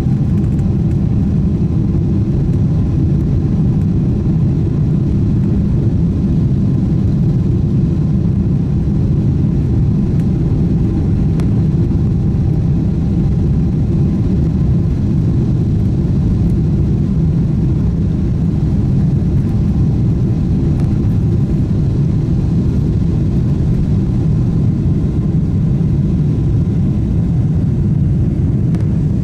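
Steady cabin rumble of a Boeing 777-300 in flight or on its takeoff run, engine and airflow noise heard from a window seat, deep and unchanging throughout.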